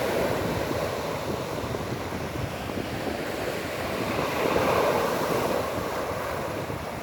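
Stormy sea surf breaking on the shore, a steady rush that swells with a bigger wave about four and a half seconds in, with wind blowing on the microphone.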